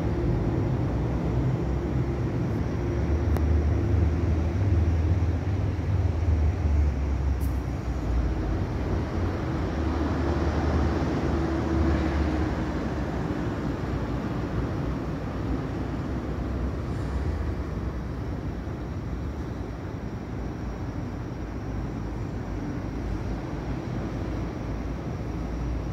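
Steady low rumble of distant city traffic, with a faint steady hum, a little louder in the first half and easing off later.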